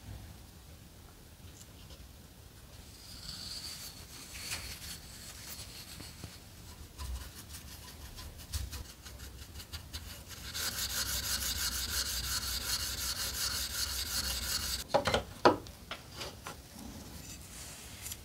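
Steel wool scrubbed back and forth over the flat of a carbon-steel knife blade clamped to a wooden board, putting a brushed pattern finish on the steel. The scrubbing is soft at first, then becomes loud and fast a little past halfway and stops with two sharp knocks.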